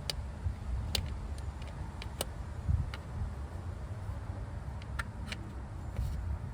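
Light metallic clicks and clinks, scattered irregularly, from timing-chain parts and tools being handled while the chain guide is fitted, over a low steady rumble.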